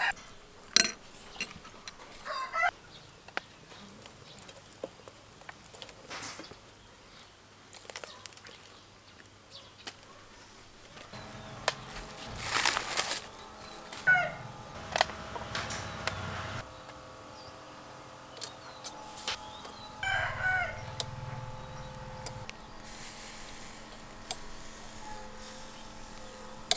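Chickens clucking and a rooster crowing several times, each call short and rising and falling in pitch. Sharp clicks and knocks fall between the calls, with a louder rush of noise near the middle and a steady low hum through the second half.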